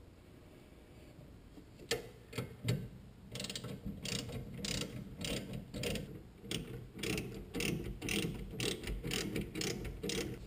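Hand socket ratchet clicking through repeated strokes while a bolt on the rear brake caliper is run in. A few separate clicks come about two seconds in, then steady strokes follow at about two a second.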